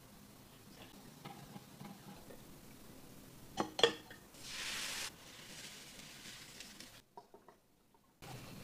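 Metal ladle clinking a few times against a glass jar as it scoops thin batter, followed straight after by a short hiss lasting under a second.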